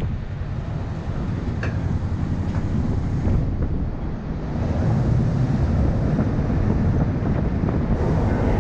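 Mexican-built Volkswagen Beetle driving slowly up a ferry's metal loading ramp into the car deck: its air-cooled flat-four engine running as a low, steady rumble, with wind buffeting the microphone mounted outside the car. It grows a little louder about halfway through.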